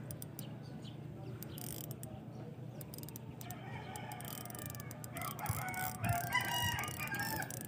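A rooster crowing in the second half, over the faint steady sound of a spinning reel being wound in after a hookup.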